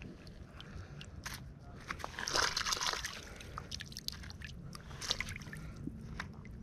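Rubber-coated work gloves rubbing and scraping a small corroded coin, with scattered small clicks and a louder stretch of rubbing about two seconds in.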